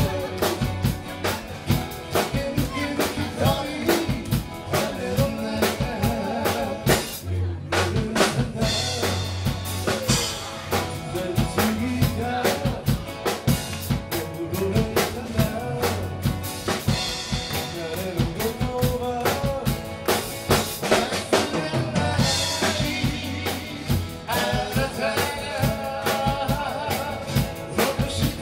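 Live band music: strummed acoustic guitars over a steady drum-kit beat.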